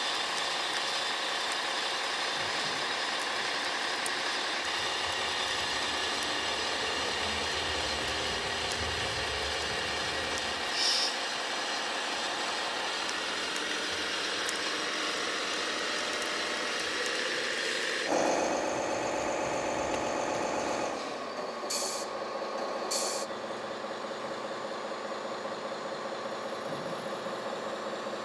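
Radio-controlled model construction machines at work: a steady whine of small motors as a miniature conveyor carries soil and drops it off. About two-thirds through the sound changes suddenly to a model truck's simulated diesel engine running from its sound module, with two short air-brake hisses a few seconds later.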